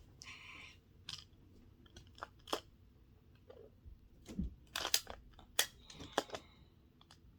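Magnetic building pieces being handled and snapped together: irregular sharp clicks and clacks with a short rustle near the start, coming thickest a few seconds in.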